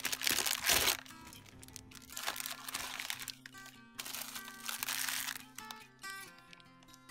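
Clear plastic bags around plush toys crinkling in three bursts as they are handled, the loudest about a second in. Gentle acoustic guitar background music plays under them.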